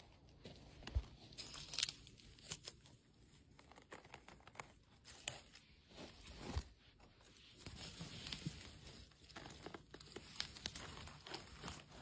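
Footsteps on forest-floor litter and a body pushing through dry conifer twigs and branches: irregular crackling, rustling and twig snaps, with a few sharper snaps standing out.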